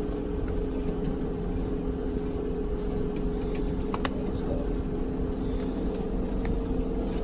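Steady mechanical hum with a constant pitched tone, with a single sharp click about four seconds in.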